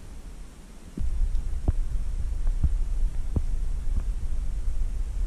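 Low rumble on the camera's microphone that gets much louder about a second in, with a few short soft knocks scattered through.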